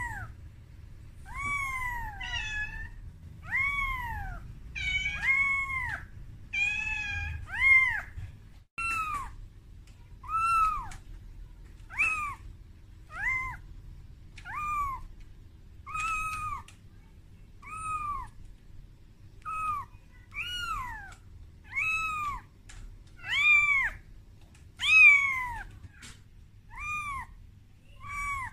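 Very young calico kitten mewing over and over, about one high cry every second and a half, each call rising and then falling in pitch. These are a frightened kitten's cries calling for its mother.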